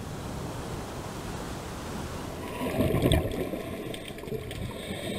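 Water noise: a steady rushing hiss of sea or underwater ambience, swelling briefly louder and lower about three seconds in.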